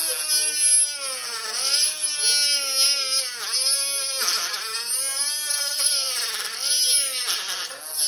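Rotary tool with a small disc grinding into the plastic housing of a Ryobi 18V cordless tool. The motor whine sags in pitch each time the disc bites and recovers as it eases off, about once a second, over a hiss of grinding.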